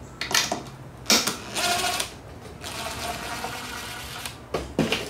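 Cordless drill-driver running on a wood screw in a couple of bursts, the longer one about two seconds in the middle, with a few clicks and knocks around it. The screw sits too close to the edge of the board and has split the wood.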